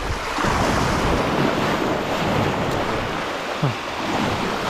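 Sea surf washing and breaking over seaweed-covered rocks, with wind buffeting the microphone. A brief low thump comes about three and a half seconds in.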